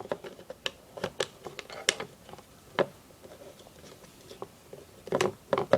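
Scattered light clicks and taps of small parts of a CO2 BB pistol being handled and fitted back into the gun's frame, a few irregular knocks a second with a small cluster near the end.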